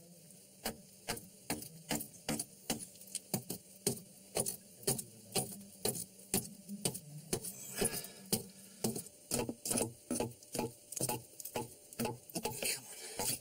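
Rapid, irregular sharp knocks, about three a second, of a tool chipping at an old brick wall to break through it.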